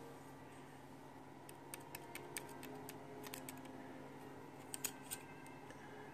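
Faint, scattered small clicks and taps of a small plastic RC car being handled, a string of them between about one and a half and five seconds in, the loudest near the end, over a low steady hum.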